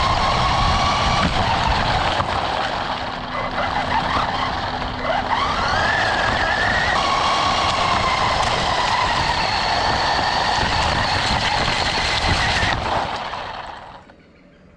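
RC car's motor and drivetrain whining over the rumble of its tyres on rough, gravelly asphalt, heard from a camera mounted on the car. The whine rises as the car speeds up about five seconds in, then stops shortly before the end as the car comes to rest.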